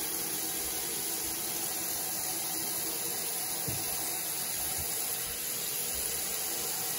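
Water streaming from a bathroom sink faucet into a plastic container, a steady splashing rush as the container fills.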